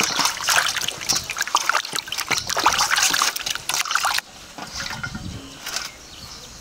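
Water splashing and trickling in a metal basin as hands scrub a raw whole chicken. The splashing cuts off abruptly about four seconds in, leaving a quieter stretch.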